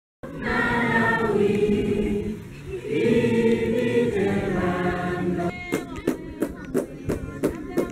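A group of students singing together in chorus. About five and a half seconds in, rhythmic hand-clapping joins the singing, about three claps a second.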